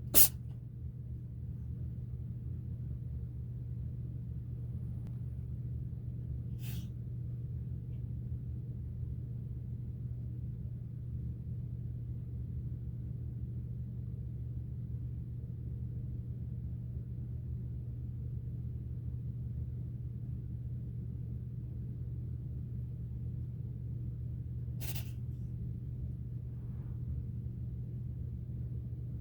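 A cat sneezing: two short, sharp sneezes, one about seven seconds in and another about twenty-five seconds in, over a steady low hum. A sharp click comes right at the start.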